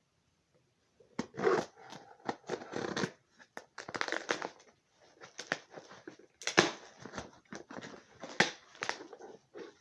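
Cardboard shipping box being opened by hand: irregular tearing, crinkling and scraping of tape and cardboard with sharp clicks, starting about a second in.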